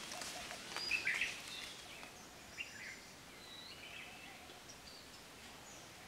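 Oriental magpie-robin singing: a string of short, varied whistled notes, the loudest about a second in, over faint background hiss.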